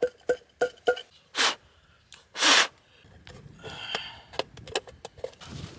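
A few light knocks, then two short, sharp breaths through the nose, then rustling and clicking of camping gear being packed.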